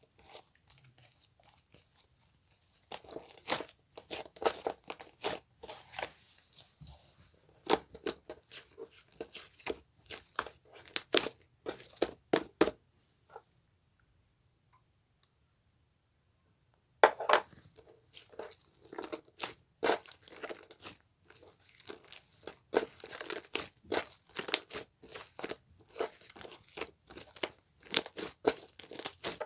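Irregular crinkling, crunching and tearing sounds in short crackly bursts, with a few seconds of near silence about halfway through before they start again.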